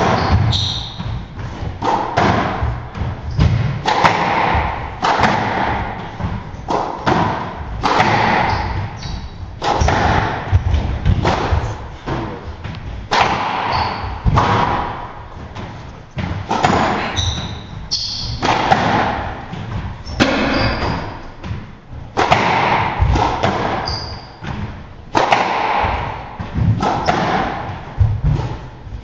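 A squash rally: the ball is struck by rackets and smacks off the front and glass walls, a sharp thud about once a second, with sneakers squeaking briefly on the hardwood floor as the players lunge and turn.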